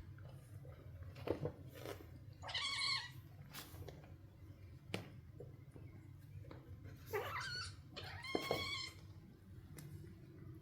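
Maine Coon kittens play-fighting: two high meows, one about two and a half seconds in and one about seven seconds in, among short knocks and scuffles of paws and bodies.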